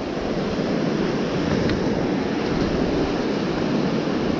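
Surf washing up the beach in a steady rush, mixed with wind buffeting the microphone.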